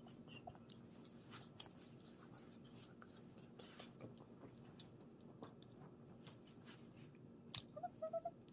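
Near silence: faint room tone with a steady low hum and scattered soft clicks and taps, with a few slightly louder short sounds near the end.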